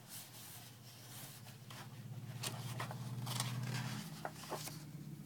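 Paper pages of a picture book being turned by hand: soft rustles and brushes of paper, with a faint low hum under them.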